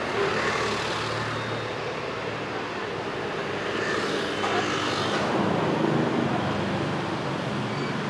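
City street traffic: a steady wash of passing vehicles and engine noise that swells a little past the middle.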